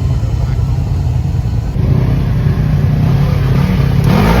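An off-road engine, a dirt bike or quad, running with a steady low rumble, then revving up with a rising pitch near the end.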